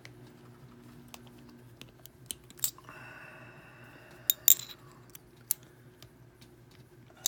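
Small metal clicks and taps of a screwdriver and padlock being handled while a very tight screw is worked at, with a short rasping scrape about three seconds in.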